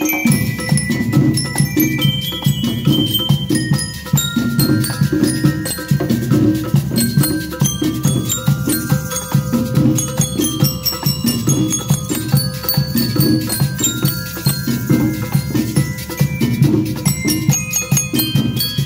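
School rhythm band playing: a driving drum beat with bell lyres (metal-bar glockenspiels) carrying the melody on top, steady throughout.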